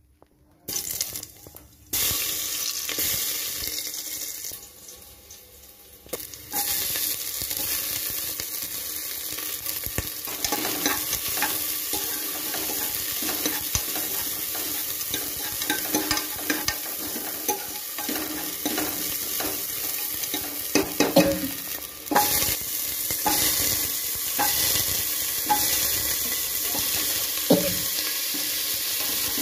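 Chopped vegetables, and later diced potatoes, sizzling as they fry in hot oil in a pan, with a spatula scraping and clicking against the pan as the food is stirred. The sizzle starts about a second in, dips briefly, then steps up louder about six seconds in and again about three quarters of the way through.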